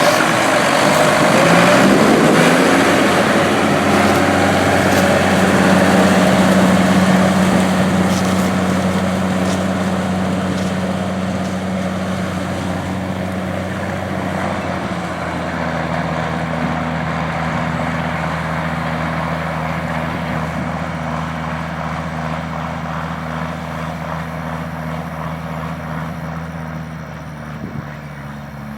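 Large diesel engine of a heavy farm vehicle revving up about two seconds in, then running steadily under way. The pitch changes about halfway through and the sound slowly fades.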